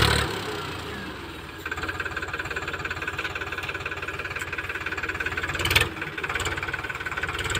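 Powertrac Euro diesel tractor engine running with a steady, even chugging pulse as it drags a cultivator to level heaped soil. It is loud at the very start and eases off within about a second, with a short louder burst about three-quarters of the way through.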